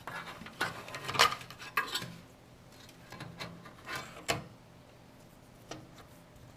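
Hands handling a power cable and its connector on an open PC test bench: clicks and knocks of plastic and metal parts with some rubbing. The sharpest knocks come in a cluster in the first two seconds, with a few more around four seconds in and one near the end.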